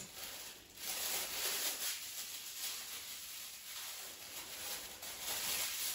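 Thin disposable plastic gloves crinkling and rustling as they are pulled onto the hands, starting about a second in.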